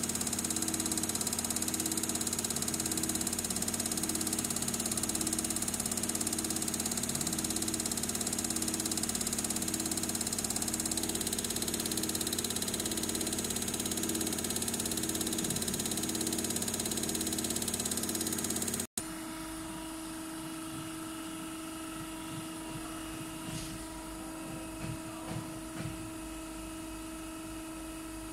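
Common-rail injector test bench running a Denso injector flow test: the motor-driven high-pressure pump turning at 800 rpm with the rail at 160 MPa, a steady mechanical hum with a faint pulse about once a second. About two-thirds of the way through it cuts off abruptly as the test ends and the pump stops, leaving a quieter steady hum and a few light clicks near the end.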